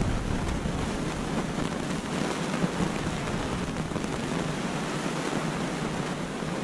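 Wind blowing across the microphone: a steady rushing noise with a low rumble that eases about half a second in.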